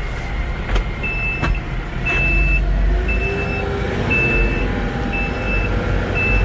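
TYM 654 tractor's turbo-diesel engine running steadily while its reverse alarm beeps about once a second, starting about a second in: the shuttle is in reverse. Two sharp clicks come just before the beeping begins.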